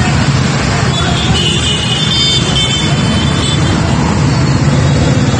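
A long line of motorcycles and scooters riding slowly past, many small engines running together in a steady, loud drone.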